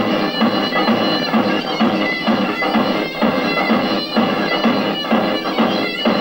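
Halay dance music: a shrill reed-pipe melody over a steady drum beat.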